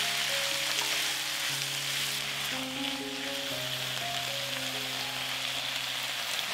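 Steady sizzle of food frying in a pan, with a simple background melody of held notes underneath.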